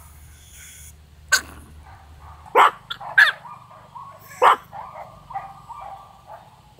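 Pomeranians barking in sharp high yaps, about four of them, with a drawn-out wavering whine-howl between the yaps from about three to six seconds in: the dogs' barking 'chorus', set off by a person coming near.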